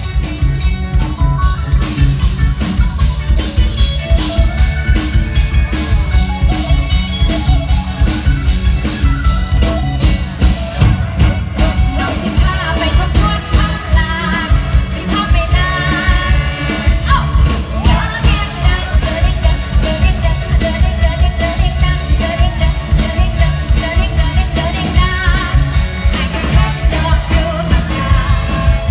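Loud amplified Isan concert music from a live band, with a fast steady drum beat and a woman singing into a microphone.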